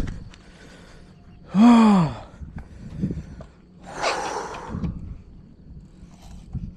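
A man's short voiced gasp, rising then falling in pitch, then a long breathy exhale about two seconds later.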